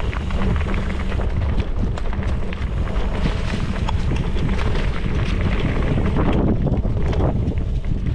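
Mountain bike rolling fast over dirt singletrack, heard from the handlebars: knobby Maxxis Minion DHR tyres crunching over the trail with a constant rattle of small clicks and knocks from the bike, over a steady wind rumble on the microphone.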